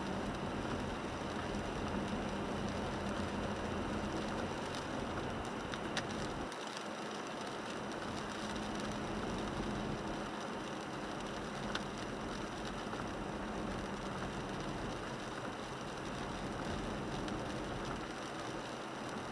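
Inside the cabin of a 1998 Toyota 4Runner driving in rain: steady road and engine noise from tyres on the wet road, with rain on the windshield and a few sharp ticks.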